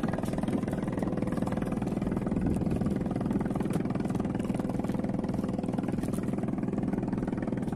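A small boat engine running steadily with an even, unchanging drone.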